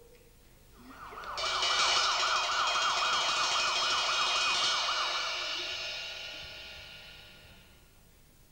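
Siren with a fast, repeating up-and-down wail, played as a stage sound effect. It swells in about a second in, holds loud for a few seconds, then fades out slowly.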